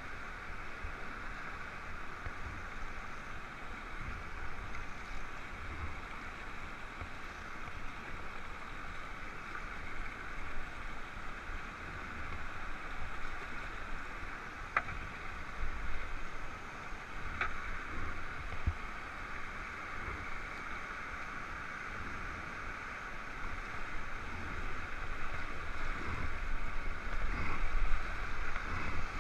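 Steady rush of river rapids around a whitewater kayak, with low bumps and a couple of sharp knocks about halfway through. The rush grows louder near the end as the kayak reaches a stretch of white water.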